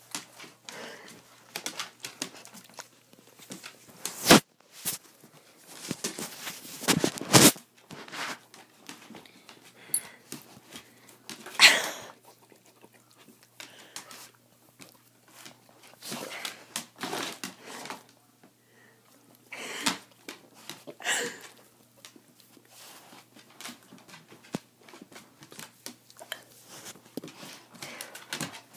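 A dog licking and nibbling at wet hair close to the microphone: a busy run of wet mouth clicks, smacks and rustling, with a few louder sharp bursts about four, seven and twelve seconds in.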